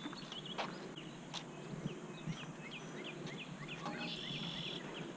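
Quiet outdoor ambience with small birds chirping in quick short notes, a few faint knocks, and a brief high buzzy trill near the end.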